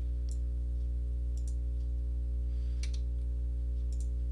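Computer mouse clicking a handful of times, single and in quick pairs, as sketch lines are trimmed in CAD software. A steady electrical hum runs underneath.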